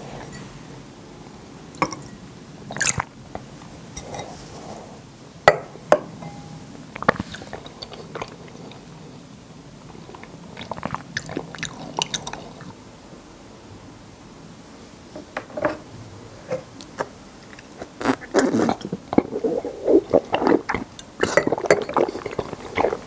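Eating sounds of drinkable konjac jelly, picked up close: chewing with scattered sharp mouth clicks, coming thicker near the end.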